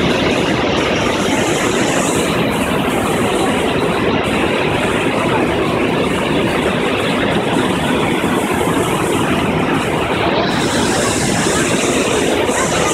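Loud, steady roar of turbulent rushing water.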